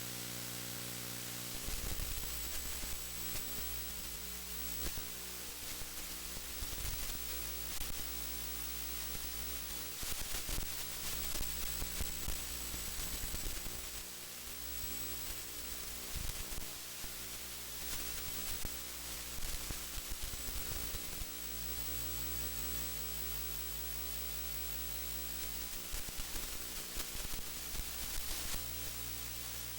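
Steady static hiss over a low electrical hum, broken by short, irregular crackles.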